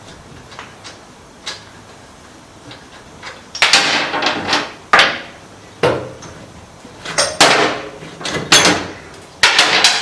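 Sharp metallic knocks and clanks, some ringing briefly, coming in clusters from about three and a half seconds in: tools and parts striking metal as a motorcycle's rear wheel is taken out.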